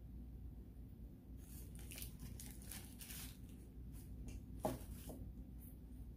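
Faint eating and handling sounds from a fast-food sandwich: crackly rustling as the sandwich and its paper wrapper are handled, and one louder, sharp sound a little under five seconds in.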